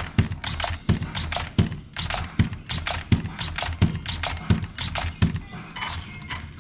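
Background music with a steady, slow beat: a heavy drum hit about every three-quarters of a second, with sharper hits between them over a bass line.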